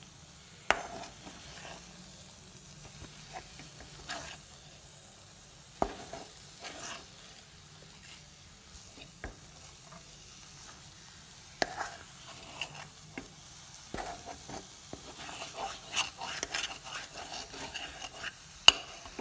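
Steel spoon stirring and scraping a thick almond burfi mixture in a pan on the flame, with a sharp clink of spoon against pan every few seconds and a soft sizzle of ghee underneath. The scraping gets busier near the end.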